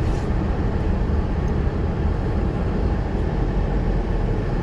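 Steady low rumble of a car driving, heard inside the cabin: road and tyre noise with the engine underneath.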